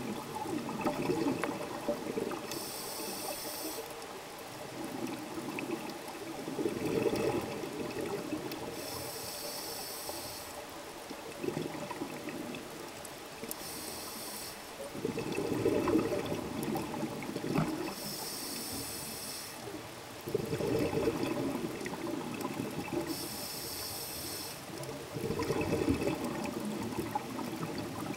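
Scuba diver breathing through a regulator, heard underwater: five hissing inhalations about every five seconds, each followed by a burst of bubbling exhaled air.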